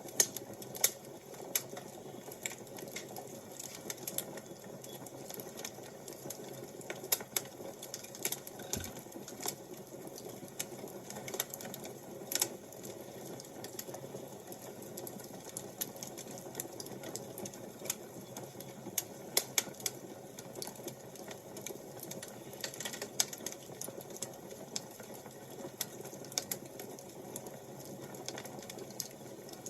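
Wood fire crackling: irregular sharp pops and snaps, a few louder than the rest, over a steady low hiss and rumble.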